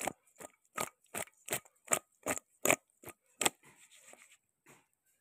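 Sliced starfruit being tossed by hand in a stainless steel bowl: a steady run of about ten wet slaps, two or three a second. At about three and a half seconds it gives way to a softer rustle and a few faint strokes.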